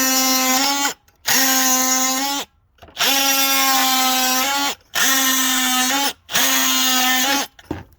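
Oscillating multitool with a carbide-tipped blade, running with a steady high-pitched whine. It is switched on and off in five short runs of about one to two seconds each, with brief pauses between them.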